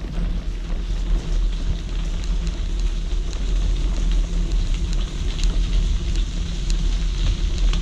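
Wind noise on a GoPro action camera's microphone while riding a bicycle along a gravel trail, steady and heavy in the low end, with small crackles from the tyres on the gravel.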